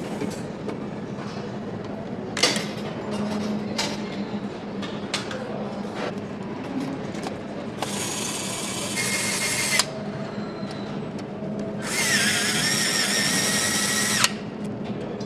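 Handheld power screwdriver running in two bursts of about two seconds each, driving bolts into a motorcycle engine, its motor whining high. Before them come sharp clinks and knocks of metal parts being handled, over a steady factory hum.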